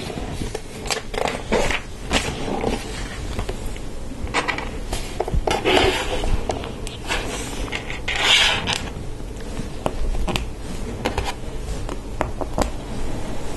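Small plastic LEGO Technic parts clicking and scraping as they are handled and pushed together, with two longer scraping rustles about six and eight seconds in.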